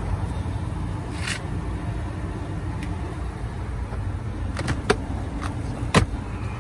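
Steady low rumble, with a short hiss about a second in and a few sharp clicks and knocks near the end, the last the loudest.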